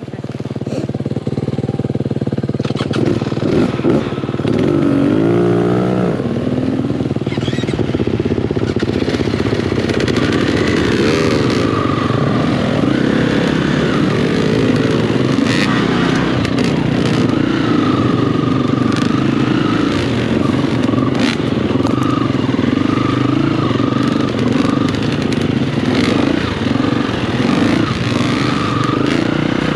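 Dirt bike engine under riding load, its pitch rising and falling over and over as the throttle opens and closes through the gears. It climbs from a low level in the first couple of seconds, with scattered clicks and clatter over the engine.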